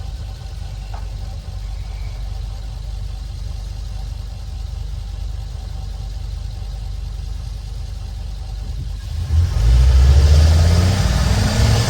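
Ford 6.8L V10 gasoline engine running steadily at low revs. About nine seconds in it gets much louder and its pitch rises as it accelerates.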